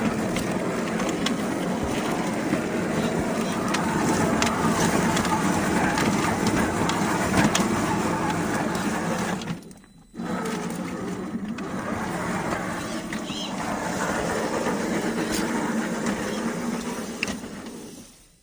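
RC rock crawler driving off-road: the whine of its brushed electric motor and gears, mixed with the tyres crunching and clicking over dirt and rocks. The sound cuts out briefly about ten seconds in, then carries on and fades near the end.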